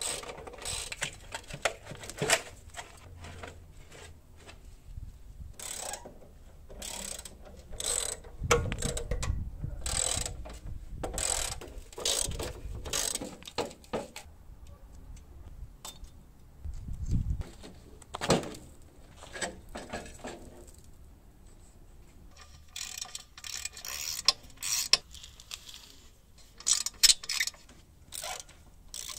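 Hand tools undoing bolts on a motorcycle frame: a ratchet wrench clicking in short runs, with metal clinks of spanners and parts and a few dull knocks.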